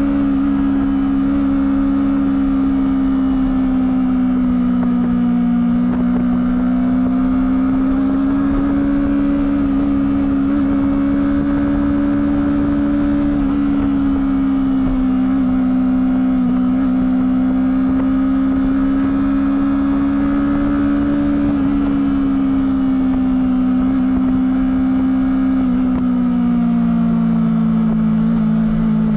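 Honda CBR250RR engine through its stock exhaust, running at steady high revs under way. The pitch rises and falls gently, then drops near the end as the revs come down.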